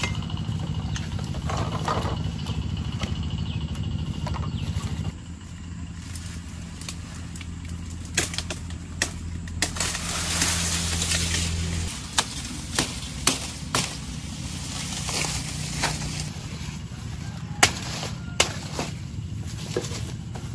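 Sugarcane being cut and handled: a scattering of sharp chopping knocks, about eight in all, with rustling of cane leaves between them. Under this, a low steady engine-like hum shifts about five seconds in and stops about twelve seconds in.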